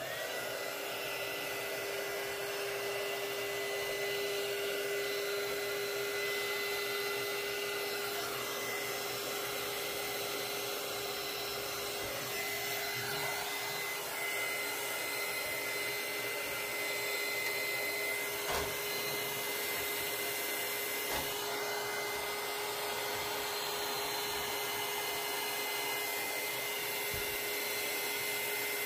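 Handheld electric heat gun switched on and running steadily, its fan blowing with a steady whine, while heating vinyl wrap so it stretches over tight corners. A few faint knocks come from handling.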